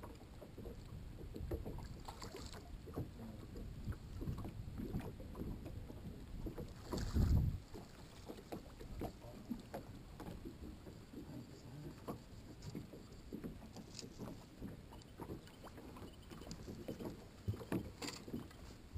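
Lake water lapping against a fiberglass bass boat's hull, with wind on the microphone and small knocks and rattles of gear on the deck while a bass is landed in a net; a heavy low thump about seven seconds in.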